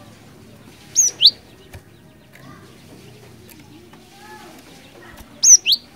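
Cinereous tit (glatik batu) singing a loud two-note phrase twice, about four and a half seconds apart. Each phrase is a high falling note followed by a quick rising sweep.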